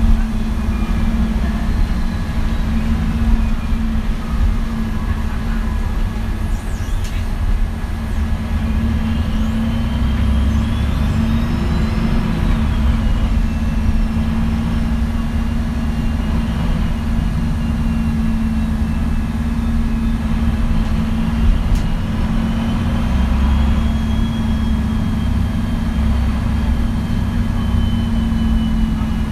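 MAN NG 313 articulated city bus's diesel engine idling steadily while the bus stands, a deep, even drone with faint higher tones gliding up and down over it.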